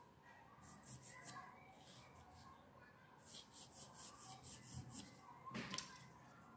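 Faint scratching of a graphite pencil sketching on textured watercolour paper: short quick strokes, with a run of about six a second in the middle. A louder short handling knock near the end.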